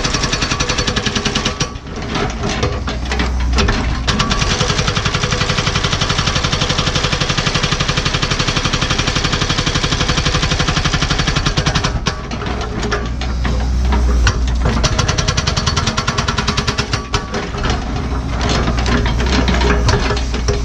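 NPK hydraulic hammer on a Cat 314E excavator pounding hard blue-rock bedrock in a fast, steady run of blows, with the excavator's diesel engine running underneath. The hammering pauses briefly about two seconds in and again near twelve and seventeen seconds.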